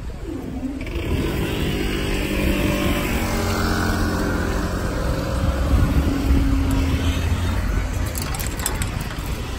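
Railway level crossing barriers lifting, with a steady mechanical hum of several tones over a low rumble of road and rail traffic. A few sharp clicks come near the end.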